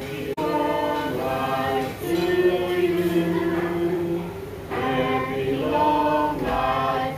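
A group of voices singing a birthday song together, in long held notes.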